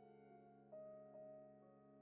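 Quiet background music: slow, soft keyboard notes over a held chord, with new notes entering about two thirds of a second in and again a little later.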